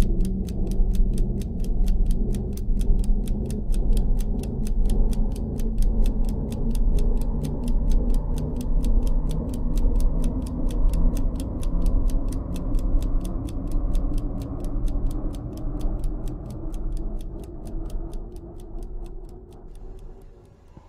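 Rapid, even ticking, about five ticks a second, over a low droning music bed. The ticking and drone fade out over the last few seconds.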